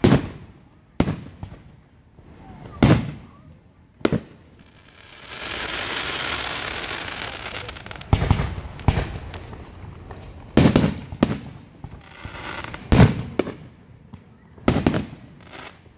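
Aerial fireworks shells bursting overhead: about a dozen sharp booms, some in quick pairs. A steadier hiss runs for a couple of seconds midway.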